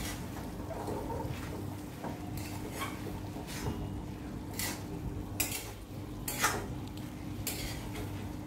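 A spatula scraping and stirring chicken keema in a metal kadai, with irregular scrapes about once a second, as the mince is sautéed with spices in its own released water. A faint steady hum runs underneath.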